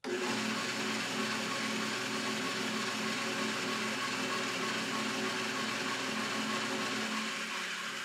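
Powermatic 1150 drill press motor switched on through its new three-pole contactor, starting abruptly and running with a steady hum. About seven seconds in the hum drops out and the machine runs down.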